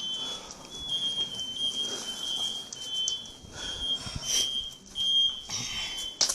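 Smoke alarm beeping: a high steady tone in short repeated beeps, sounding in a burning house. Scattered knocks and rustles are heard over it.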